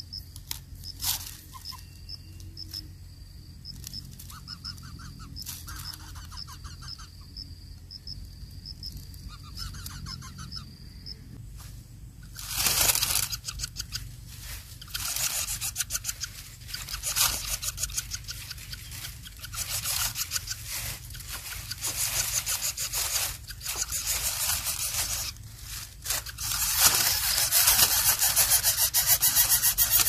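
Lesser coucal nestlings begging for food with harsh, rapidly pulsed rasping calls. They come in bouts from about twelve seconds in and run almost continuously near the end, as an adult arrives at the nest.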